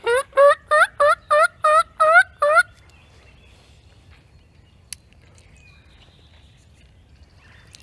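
Hen-turkey yelps blown on a hunter's mouth call: a run of eight loud notes, about three a second, each rising in pitch, over the first three seconds. A single sharp click about five seconds in.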